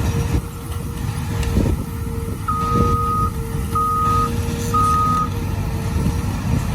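Heavy diesel equipment running with a steady low rumble, while a backup alarm sounds three beeps a little over a second apart, starting about two and a half seconds in.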